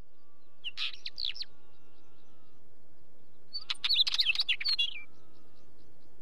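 Northern wheatear singing: a short phrase of quick notes about a second in, then a longer, louder phrase of rapid clicks mixed with whistled notes about three and a half seconds in, over a steady background hiss.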